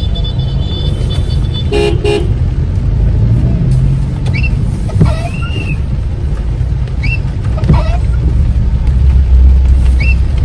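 A vehicle horn gives two short toots about two seconds in, over the steady low rumble of a car on the road. Short squeaks come in pairs about every three seconds.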